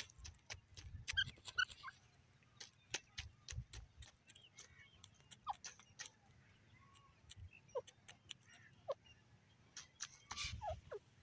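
Francolin (teetar) hen giving a few soft, short calls that slide downward in pitch, spaced a second or more apart, with two close together near the end. Many faint clicks and ticks run alongside as it scratches and pecks in the dry soil.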